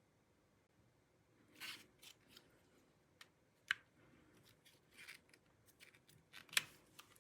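Unboxing packaging being handled: a scatter of short rustles, scrapes and sharp clicks, the loudest click near the end.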